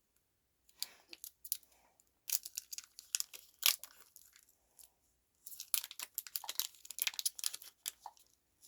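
A plastic snack wrapper being torn open and crinkled, in two spells of rustling and crackling.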